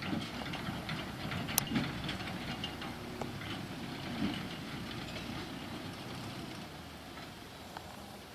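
Diesel tractor engine running steadily at a distance, a low rumble, with one sharp click about a second and a half in.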